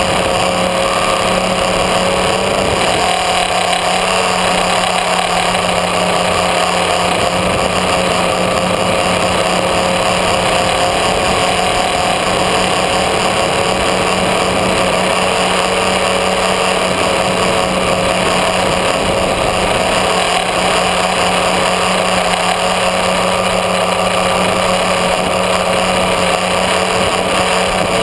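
Electric motors and propellers of an FPV tricopter running in flight, heard from a camera mounted on the craft: a steady buzz with several held tones that waver slightly.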